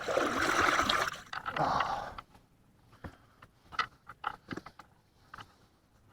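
Water splashing and rushing for about two seconds, then a few light knocks and clicks of gear being handled in a small fishing boat.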